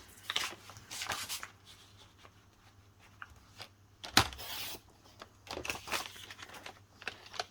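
Patterned paper rustling as it is handled, then one sharp half-second cut through the sheet about four seconds in, followed by lighter rustles as the trimmed piece is moved.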